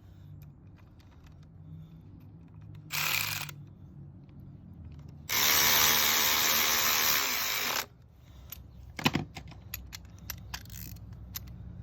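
Cordless drill/driver spinning the locking-hub retaining bolts in, in two bursts: a short one about three seconds in and a longer one of about two and a half seconds a little later. Light metal clicks and knocks of tool handling follow near the end.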